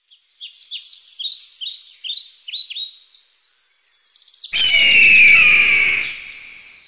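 Birds chirping in quick repeated high notes, each sweeping downward, about three or four a second. At about four and a half seconds a louder rushing sound with a slowly falling whistle in it takes over, then fades out.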